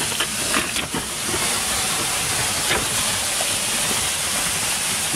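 Compressed air hissing steadily out of a compressor-fed hose laid into the tunnel to flush out the gas, with a few faint knocks of rock in the first second.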